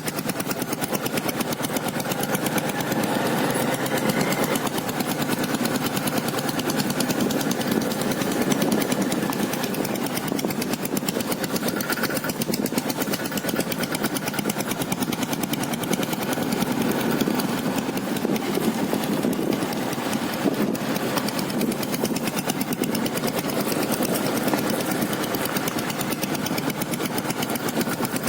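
Royal Enfield Taurus diesel motorcycle's single-cylinder diesel engine running steadily, with a fast, even firing beat.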